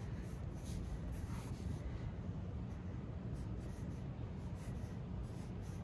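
Pencil scratching on sketchbook paper in a series of short strokes, over a steady low rumble.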